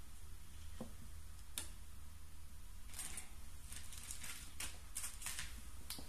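Scattered light clicks and rustles from handling at close range, a couple in the first two seconds, then a quicker run from about three seconds in, over a steady low hum.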